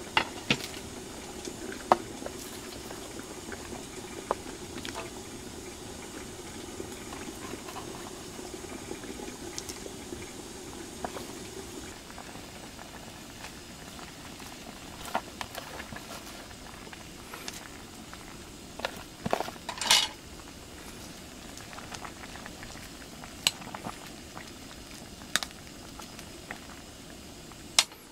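A steel pot of broth with tofu bubbling at a steady boil. A few sharp clicks and knocks of handling at the pot break in, the loudest short clatter about twenty seconds in.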